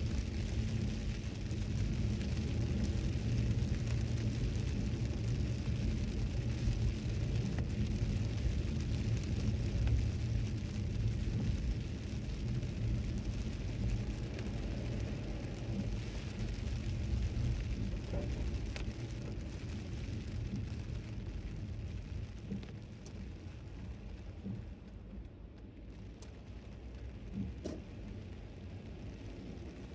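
Cabin noise of a Toyota Celsior driving on a rain-soaked road: a steady rumble of tyres on wet tarmac mixed with rain. It slowly grows quieter over the second half.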